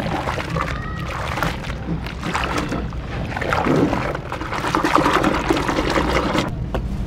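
Hands squeezing and crumbling clumps of fine sand in a tub of foamy, soapy water: wet squishing and sloshing with many small crackles, busiest in the middle and easing off near the end.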